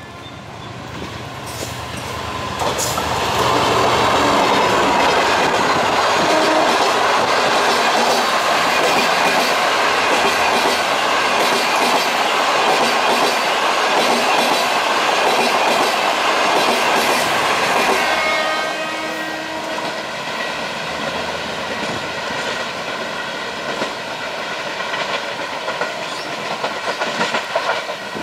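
Diesel locomotive and passenger coaches passing: the sound grows over the first few seconds into a steady loud clatter of wheels over the rails. About two-thirds of the way through it drops to a quieter rumble with a faint held tone as the train moves away.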